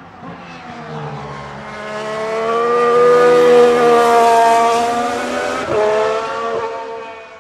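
Red Bull RB12 Formula 1 car's 1.6-litre turbocharged V6 passing close at speed, its engine note building to a loud peak with the pitch sliding slowly. About two-thirds of the way in the pitch drops sharply and picks up again, then the sound fades away near the end.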